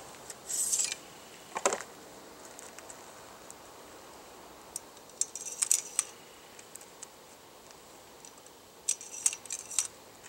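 Small metallic handling sounds of a Marlin Model 60's under-barrel tube magazine being loaded with .22 LR cartridges: a brief scrape about half a second in, a sharp click, then two clusters of light clinks and ticks as rounds go into the tube.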